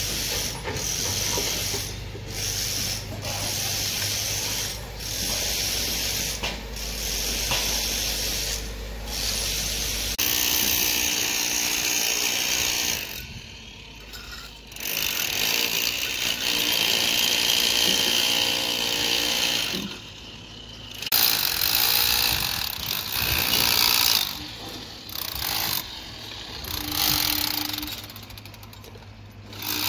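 Handheld power tool running on steel formwork in stretches, stopping and starting several times.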